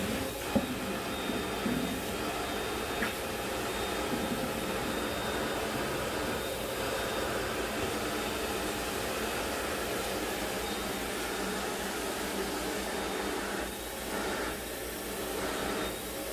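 Steady whirring of an electric fan or motor, with a faint high whine held on one pitch. There is one sharp click about half a second in.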